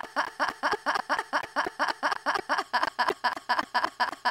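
A man laughing hard in quick, even, high-pitched pulses, about six a second.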